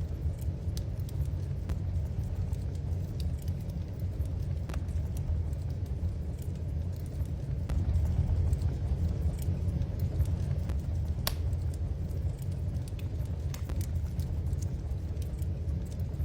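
Wood fire burning in a fireplace: a steady low rumble under irregular sharp crackles and pops.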